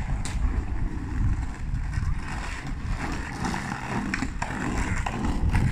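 Skateboard wheels rolling on rough, gritty concrete: a steady rumble that fills out and grows louder from about two seconds in as the rider approaches, with a few sharp clicks.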